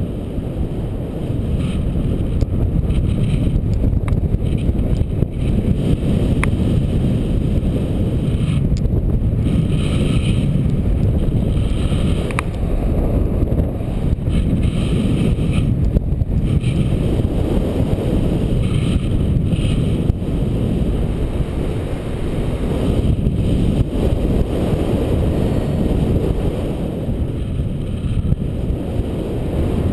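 Wind buffeting the microphone of a camera on a paraglider in flight: a loud, steady low rumble of airflow that swells and eases.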